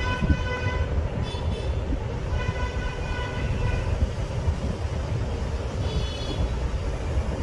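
Vehicle horns honking four times over a steady low rumble of traffic: a short honk at the start, a brief higher-pitched one, a longer honk of about a second and a half, and another brief higher one near the end.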